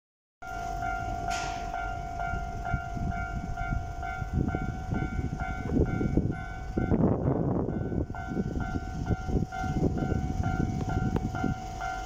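Japanese railway level crossing warning bell ringing in a fast, even electronic ding, about two a second, signalling that a train is approaching. A louder rush of noise swells for about a second midway.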